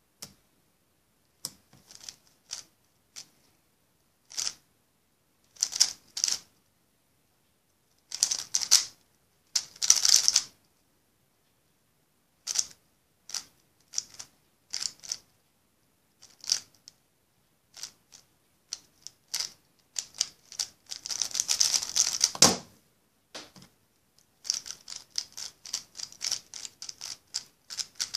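A 3x3 speed cube being turned fast by hand: its layers clack in short flurries of rapid turns separated by brief pauses, with a longer dense run past the middle and steady fast turning near the end.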